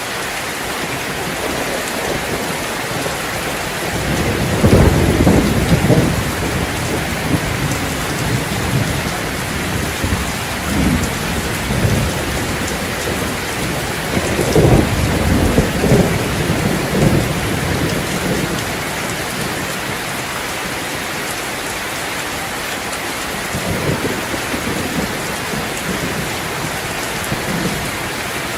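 Steady rain falling, with thunder rumbling low several times over it, the loudest rolls about five seconds in and again about fifteen seconds in.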